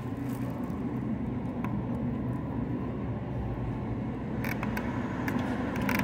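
Steady low engine hum, with a few short faint clicks about four and a half seconds in and again near the end.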